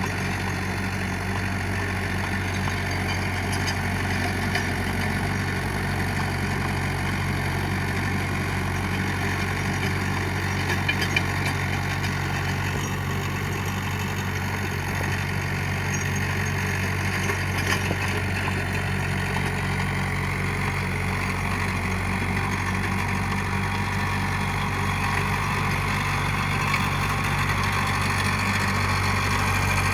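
Mahindra 575 DI SP Plus tractor's four-cylinder diesel engine running steadily at idle.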